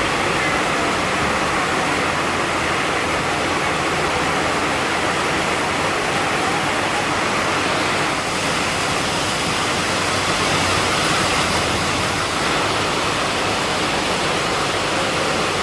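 Heavy rain pouring down steadily in a tropical storm: a dense, even hiss.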